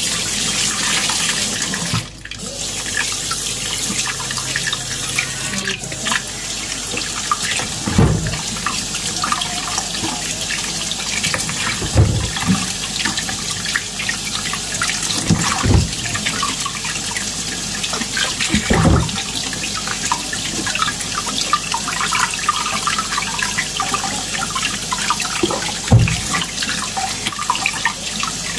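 Kitchen tap running steadily into a sink as red peppers are washed under it, with a few dull knocks of the produce being handled.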